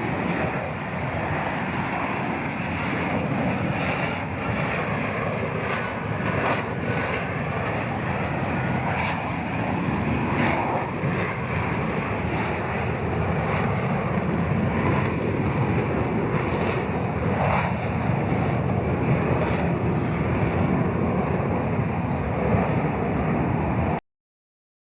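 Lockheed Martin F-35B Lightning II's single Pratt & Whitney F135 jet engine running, a loud, steady rush of jet noise that cuts off suddenly near the end.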